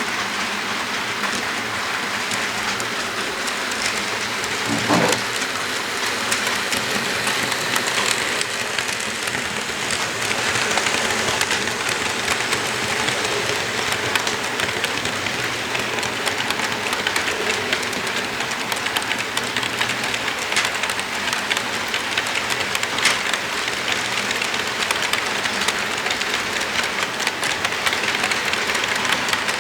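Walthers Mainline ES44AC model locomotive running along its track: a steady hiss and whir with rapid clicking from the wheels passing over the rail joints.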